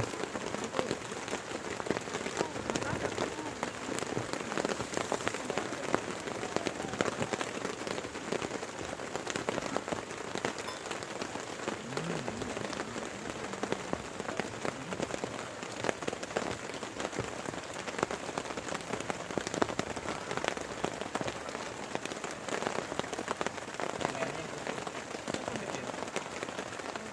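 Heavy rain pouring steadily, with a dense patter of individual drops striking close by.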